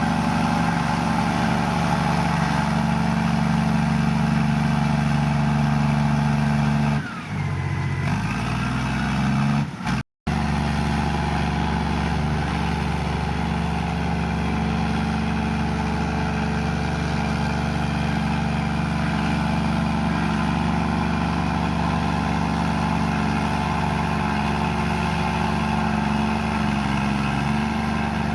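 Komatsu bulldozer's diesel engine running steadily under load, its revs sagging briefly and picking back up about seven seconds in. A momentary dropout of all sound about ten seconds in.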